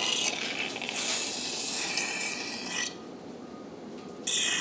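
Surgical suction tip drawing fluid and air from the abdomen with a steady rasping hiss. It stops after about three seconds and starts again just before the end.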